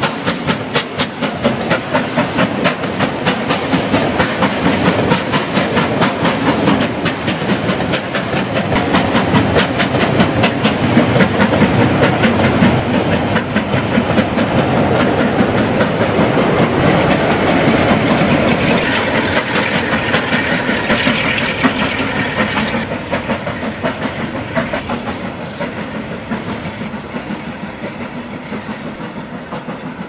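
Steam locomotive passing under power, its exhaust chuffing in a rapid, even beat; it grows louder towards the middle and fades away over the last third.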